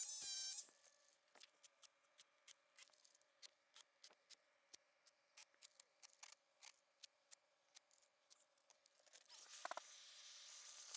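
A power drill's motor whines and stops under a second in, while drilling for or driving Tapcon concrete screws. Then near silence broken by faint, sharp clicks, two or three a second, with a soft hiss rising near the end.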